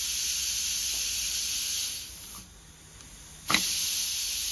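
Compressed air hissing as it is fed to a truck PTO's shift cylinder to engage it. The hiss fades about two seconds in, then starts again with a sharp click about three and a half seconds in.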